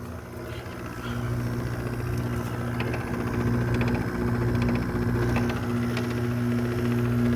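RA51k window air conditioner running, a steady electric hum with a rushing fan underneath. It swells a little over the first second, then holds steady.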